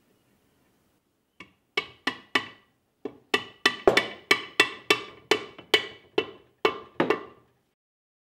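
A hammer taps a steel reverse gear shaft into the back of a Land Rover Series 3 gearbox casing: about seventeen sharp metallic taps, each with a short ring. The taps start slowly, quicken to about three a second, and stop shortly before the end.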